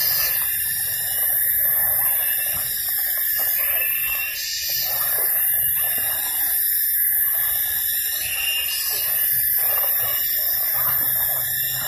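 A steady chorus of tropical forest insects, several high-pitched drones at once, swelling louder every few seconds. Under it, a plastic tarp rustles as it is pulled over the shelter frame.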